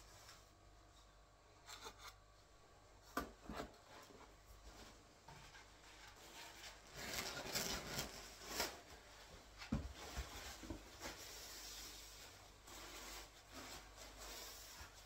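Faint, irregular scraping of a trowel combing through tile adhesive on a wall, with a few sharp clicks and a louder run of strokes about halfway through.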